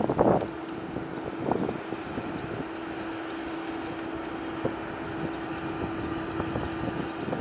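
Embraer E195 jet airliner running during pushback: a steady hum over a background haze of noise. A gust of wind hits the microphone right at the start.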